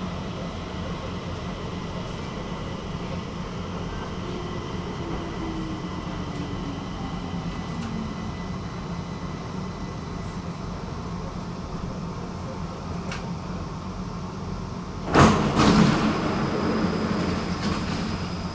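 Stockholm metro train heard from inside the car: a steady running hum with a whine that falls in pitch as the train slows. About fifteen seconds in, a sudden loud burst and a second one just after as the sliding doors open, followed by louder station noise and a thin high steady tone.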